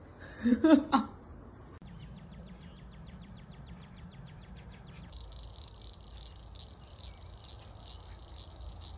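A few short, loud, falling calls in the first second, then a steady high insect-like buzz, rapidly pulsing at first and turning continuous about halfway through.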